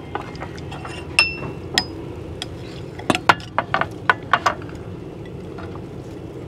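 Tableware clinking as a meal is served: two ringing clinks of bowls or dishes about a second apart, then a quick run of knocks and clinks a couple of seconds later.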